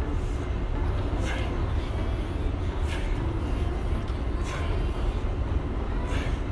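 Steady low rumble of airport terminal background noise, with a short hiss recurring about every second and a half.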